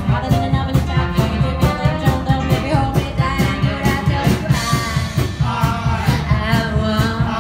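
Live jive band playing over a steady swing beat: upright bass, saxophone and trombone, with a woman singing lead. Men's voices join in on backing vocals near the end.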